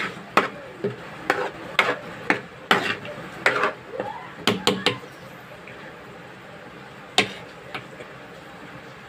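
Irregular sharp clacks and knocks of kitchen utensils, about ten in quick succession over the first five seconds, then two more a couple of seconds later.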